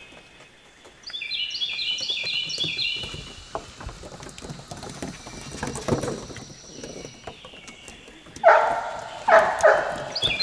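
Golden Retriever puppies' paws scrabbling and clicking on a wet wooden deck. About a second in, a songbird sings a quick run of stepped falling high notes. Near the end come three loud puppy barks.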